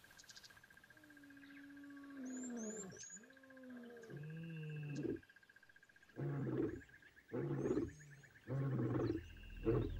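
A lion calling: two long, low moaning calls that slide down in pitch, followed by four short deep grunts about a second apart. A steady pulsing insect trill and a few brief bird chirps run underneath.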